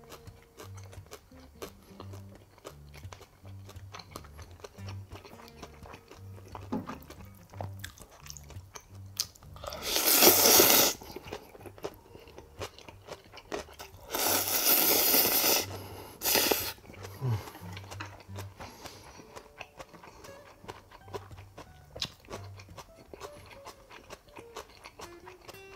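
A man slurping tonkotsu ramen noodles, two long loud slurps about ten and fourteen seconds in and a short one just after, with wet chewing and mouth clicks between them. Soft background music plays underneath.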